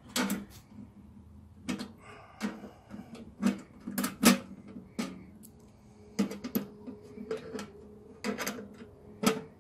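Irregular metallic clicks and knocks of a shifting spanner working bolts out of a steel safe door panel, with the sharpest knock a little past four seconds.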